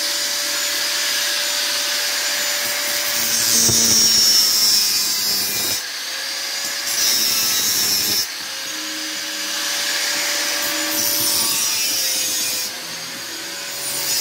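Handheld angle grinder running with a steady whine, its disc grinding a small metal part. The grinding hiss swells and eases several times as the disc is pressed on and eased off.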